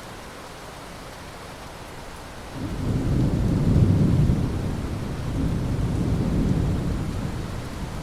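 Steady rain with a roll of thunder breaking in about two and a half seconds in. The low rumble peaks about a second later, swells a second time and then slowly dies away.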